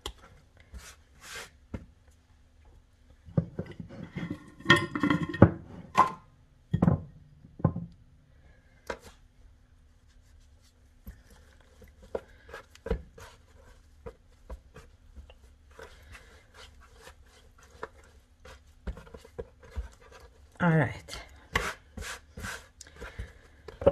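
Seitan dough of vital wheat gluten being kneaded, pressed and patted by hand on a wooden cutting board: irregular soft thumps and rubbing, loudest a few seconds in, then scattered light taps.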